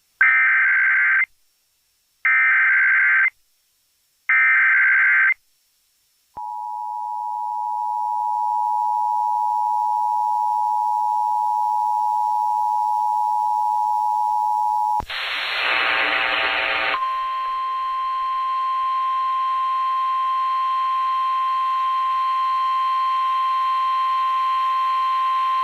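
Emergency Alert System tornado warning as heard on AM radio. Three one-second bursts of screechy data, the SAME header, come first. Then the two-tone attention signal holds steady for about eight seconds, followed by a brief noisy burst and a long single steady tone, the National Weather Service warning alarm tone.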